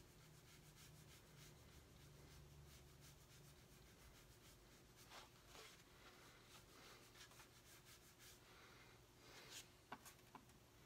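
Faint rubbing of a moist watercolour brush on paper, lifting pigment out of a yellow wash in soft, repeated strokes. Near the end, a few light clicks of the brush against the plastic palette.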